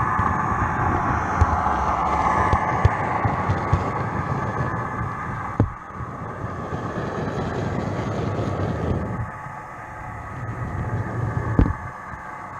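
Model train running on the layout's track: a steady motor and wheel running noise, with sharp clicks as the wheels pass over rail joints. The sound falls off somewhat about halfway through and again near three-quarters.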